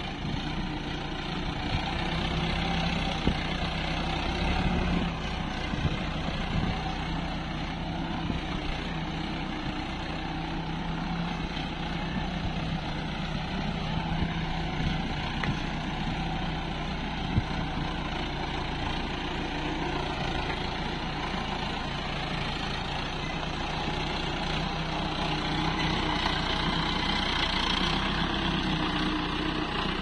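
Sonalika tractor's diesel engine running steadily under load while towing a mud-laden trolley over rough ground, with a few brief knocks. It gets louder in the last few seconds as the tractor comes close.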